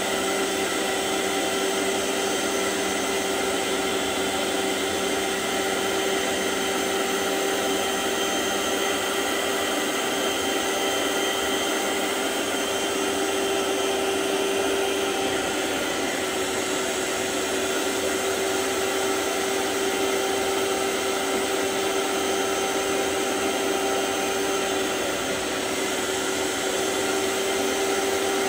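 Vax ONEPWR cordless carpet cleaner running steadily: its suction motor gives a constant, even whine at one unchanging pitch as it extracts liquid from the carpet.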